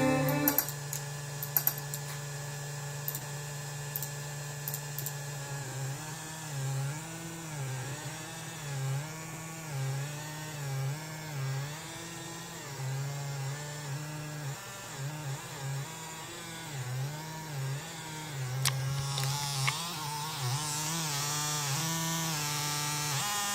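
Adam A8x powered studio monitor putting out computer-induced interference noise: a buzzing hum with warbling, wobbling tones that shift and pulse as the computer works. A click comes about two-thirds of the way in, after which a hiss grows stronger. The noise is picked up from the computer and its graphics card through the shared power outlet.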